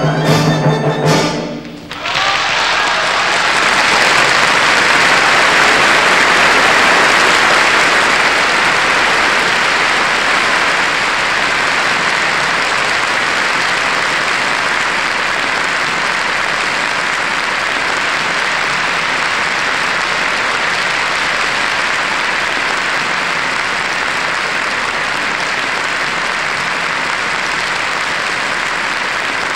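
An orchestra ends with a few loud final chords, then about two seconds in a large audience breaks into steady applause that carries on.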